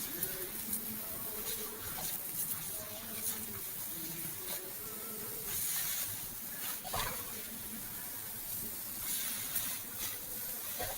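A flying insect buzzing close by, its pitch wavering up and down, over the steady hiss of a running creek.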